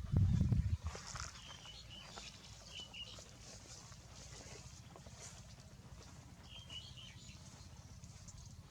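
Small birds chirping in short calls, a few near the start and a cluster later, over a faint steady low rumble, after a brief loud low thump in the first second.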